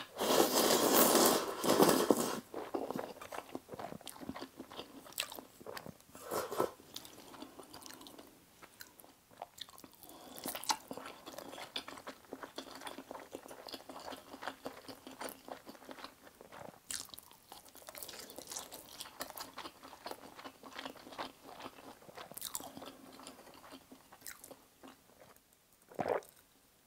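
Close-miked eating sounds of spicy stir-fried fire noodles. A loud slurp comes in the first couple of seconds, followed by a long stretch of soft chewing and wet mouth clicks. Near the end there is a gulp of water.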